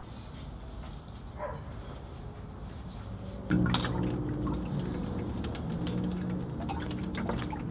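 Antifreeze draining from the Ford E350's radiator drain valve through a tube into a plastic jug, trickling and dripping into the rising coolant. It gets louder about three and a half seconds in, with a fuller run of splashing and drips.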